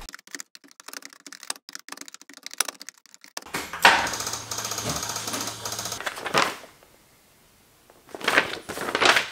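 Rapid, irregular clicking of laptop keyboard keys being typed on for about three and a half seconds, then a few seconds of louder rustling handling noise, a short pause, and a few more clicks near the end.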